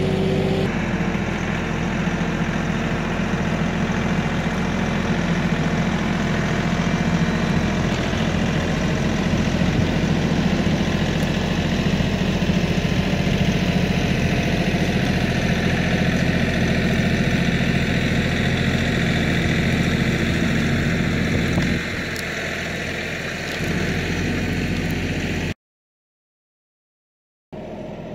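Kioti NX6010 tractor's diesel engine running steadily. It drops somewhat in level about three-quarters of the way through, then cuts out completely for about two seconds near the end before returning quieter.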